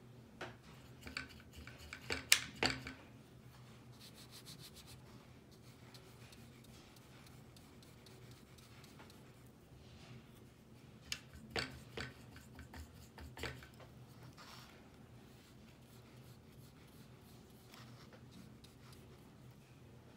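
Paintbrush dabbing and scrubbing wet paint onto watercolour paper, with two clusters of sharp taps and clicks, about two seconds in and again around eleven to thirteen seconds, and a brief stretch of fine rapid scratching in between.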